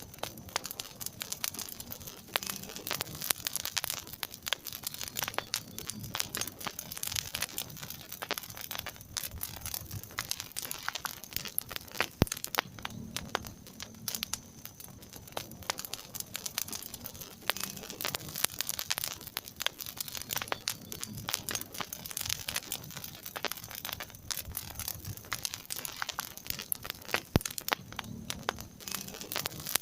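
Wood fire in a fireplace crackling steadily, a dense run of small snaps with a few louder sharp pops, the strongest about twelve seconds in.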